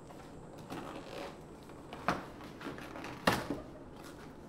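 Cardboard box being cut and worked open with a knife: scraping and rustling of cardboard and tape, with a few sharp taps and knocks, the loudest about three seconds in.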